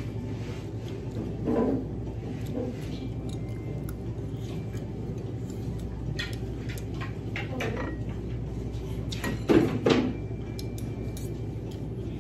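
Metal spoon and fork clinking and scraping on a plate of rice while eating, a few light clicks at a time, over a steady low background hum. Two brief louder sounds stand out, about a second and a half in and near ten seconds.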